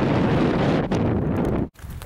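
Wind buffeting the microphone with a steady low rushing, cut off abruptly near the end.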